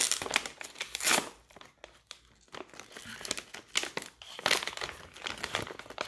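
Plastic snack pouch crinkling and rustling in irregular bursts as it is opened and rummaged through.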